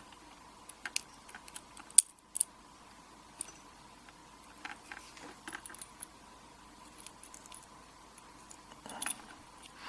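Small metal lock parts being handled: light clicks and ticks as the padlock's pin-tumbler core, pins and springs are worked apart. There are two sharper clicks about two seconds in.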